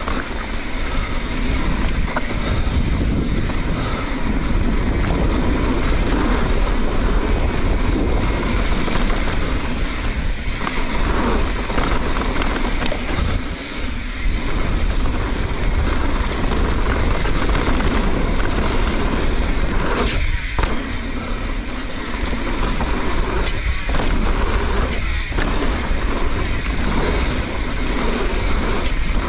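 Mountain bike ridden down a dirt jump trail, heard from a GoPro on the rider: tyres rolling over dirt and wind rumbling on the microphone as a steady rushing noise, with brief dips now and then.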